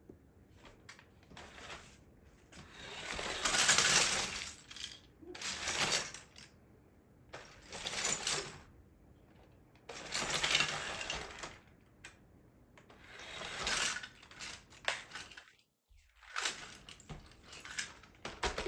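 Plastic LEGO bricks clattering and rattling as they are tipped out of a storage bin. The clatter comes in about five surges, the loudest about four seconds in, and ends in a few scattered clicks.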